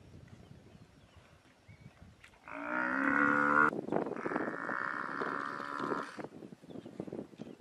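African buffalo bellowing in distress while lions bite it: two long bellows, the first loud one starting about two and a half seconds in, the second running on until about six seconds.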